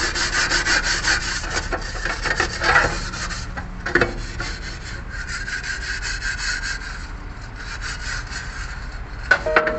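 Rapid back-and-forth scrubbing, many quick rasping strokes, with two sharper knocks, one about four seconds in and one near the end.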